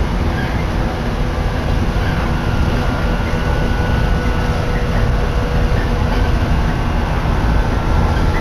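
Steady running noise of an electric train at speed, heard from inside the passenger car: an even low rumble of wheels and motors with no break.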